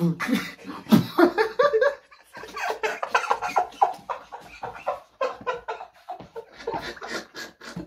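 Two young men laughing hard in short, repeated bursts.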